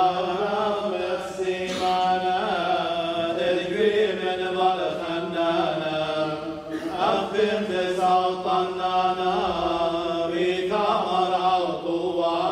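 Liturgical chanting of the Syriac rite of the Assyrian Church of the East, voices intoning prayers on a narrow range of mostly held notes, phrase after phrase with brief breaks between them.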